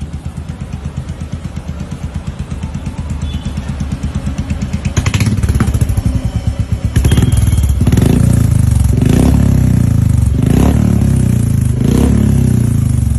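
Royal Enfield motorcycle engine running through a long aftermarket silencer held at the exhaust outlet: an even pulsing idle that grows louder, then several throttle blips revving it up and back down in the second half.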